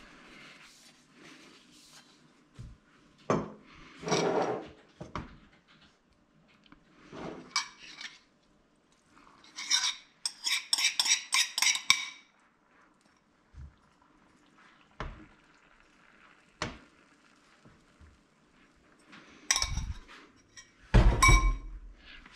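Kitchen utensil clatter: scattered knocks of a knife, bowl and pan on the counter and hob. About ten seconds in comes a quick run of clinks, a fork against a bowl as beaten egg is scraped out into a frying pan.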